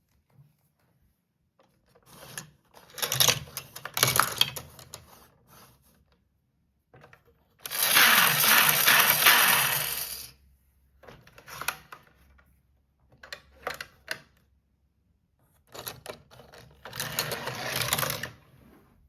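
Plastic toy playset being handled and played with: bursts of clicking and rattling of plastic parts, with a loud steady rushing noise lasting about two seconds near the middle.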